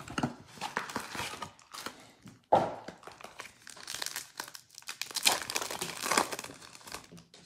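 Foil wrapper of a 2020 Panini Select Football card pack crinkling and tearing as it is handled and ripped open by hand, in irregular crackles with a sudden louder one about two and a half seconds in.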